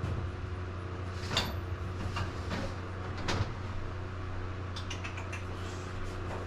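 A few light knocks and clicks of parts being handled, including a short run of small clinks about five seconds in, over a steady low hum.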